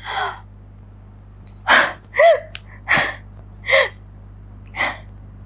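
A woman's acted crying: six short, breathy sobbing gasps about a second apart, two of them with a brief falling whimper, performed to show sadness.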